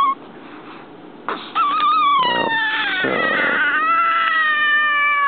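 Newborn baby crying: one cry breaks off at the start, a pause of about a second for breath, then a long drawn-out wail from about one and a half seconds in that drops in pitch partway through.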